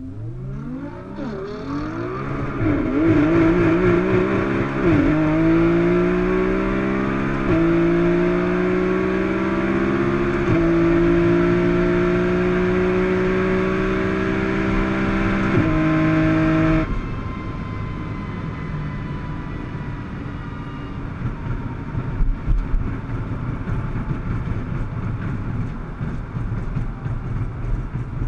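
Nissan GT-R's twin-turbo V6, heard from inside the cabin, accelerating hard through the gears: the engine note climbs and drops back with each of about four quick upshifts. About 17 seconds in the throttle is cut and the sound falls away suddenly to road and wind noise while the car runs on, with a few knocks later.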